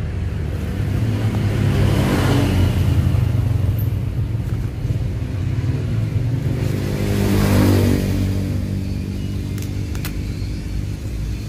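Motor vehicles passing close by: engine sound swells and fades twice, peaking about two seconds in and again around seven and a half seconds in, with a couple of light clicks near the end.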